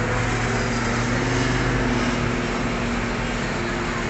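Bus engine idling steadily, a constant low hum under the general din of a busy bus terminal.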